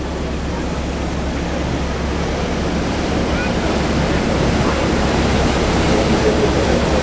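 Steady rushing of water from a weir, mixed with wind on the microphone, over the low running of a Ford GPA amphibious jeep's engine. The whole grows gradually louder.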